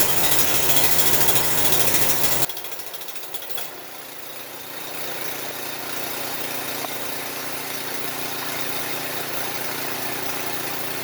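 Snowblower's small engine running after a carburetor float-seat repair: loud and fast for the first two and a half seconds, then dropping suddenly and settling into a steady, quieter run.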